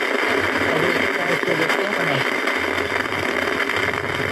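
Powered-on home theatre speaker giving out a steady hissing, rustling noise instead of clear sound, the fault it is in for repair.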